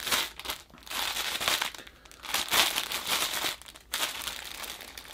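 Plastic packaging crinkling in irregular bursts as a wall tapestry sealed in its plastic wrap is handled and turned over.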